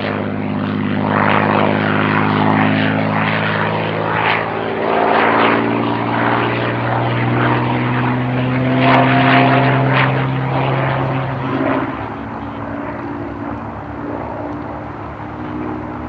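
P-51D Mustang's Packard Merlin V-12 engine and propeller as the fighter flies past overhead, a steady pitched engine note with a swelling hiss of propeller and airflow. It is loudest through the middle and falls off about twelve seconds in as the aircraft draws away.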